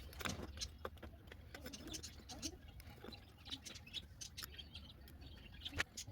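Faint, irregular light clicks and taps of small metal parts and tools being handled during rear brake work.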